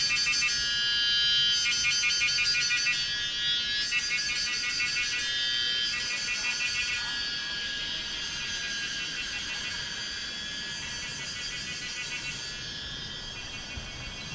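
Buzzing insects in a forest chorus, a fast pulsing buzz in phrases about two seconds long that repeat several times, then fade to a weaker, steadier drone about halfway through.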